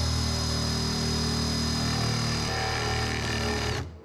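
Cordless drill spinning a spade bit into a wooden deck board, boring a shallow recess so a bolt head will sit flush. The motor runs at a steady high whine, then winds down and stops near the end.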